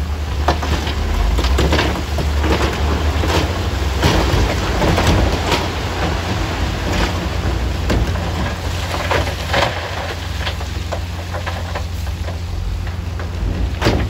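Crushed stone sliding out of a SHACMAN dump truck's raised bed and clattering down onto a rock pile, a dense run of small stone impacts, over the steady low running of the truck's engine.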